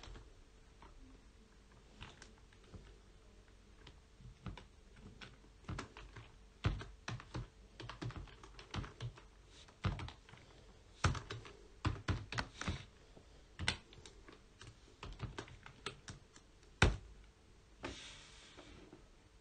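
Typing on a computer keyboard: irregular keystrokes in short runs with pauses between, with one sharper key strike near the end.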